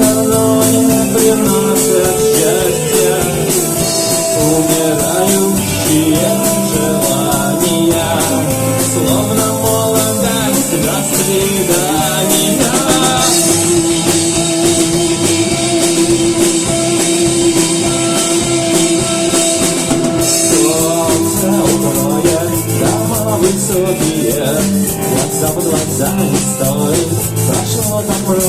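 Rock song with a drum kit keeping a steady beat under guitar, and a long held note about halfway through.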